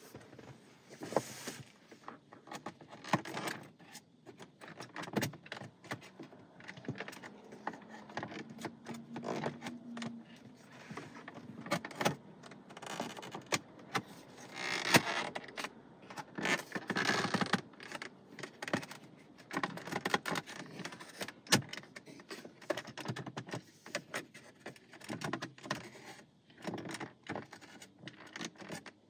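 Plastic dashboard trim panel being pried and pushed with a plastic trim removal tool: irregular clicks, taps and scraping of plastic on plastic as the panel's retaining clips hold and snap back down.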